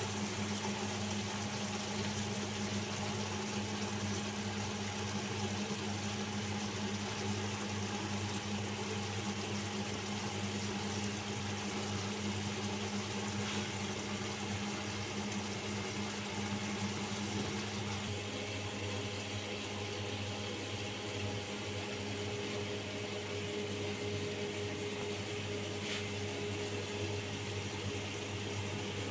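Steady machine hum over a constant hiss, its tone shifting slightly about eighteen seconds in, with a couple of faint clicks.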